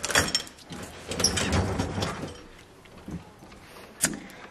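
Dishwasher rack rolling along its rails with mugs and glasses rattling in it, and one sharp click near the end.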